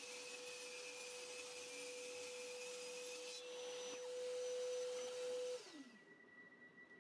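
Power saw running freely with a steady whine, then switched off about five and a half seconds in, its pitch falling as the blade spins down.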